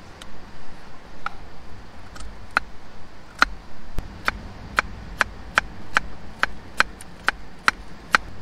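Knife slicing a carrot on a wooden cutting board: a couple of separate cuts, then from about three seconds in a steady run of crisp chops, roughly two or three a second.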